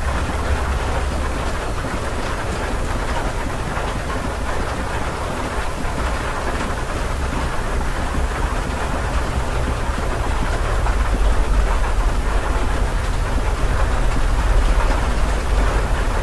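Steady rain heard from indoors, a dense even patter, with a deep low rumble underneath that swells from about halfway through.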